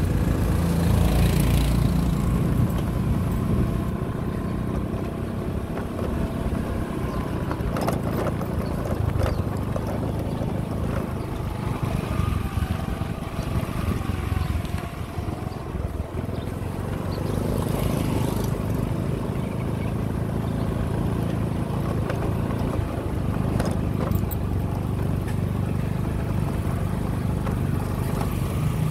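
Motorbike engine running steadily beneath the rider while it travels, with wind rushing over the microphone. About a second in, another motorbike, towing a box cart, passes close by.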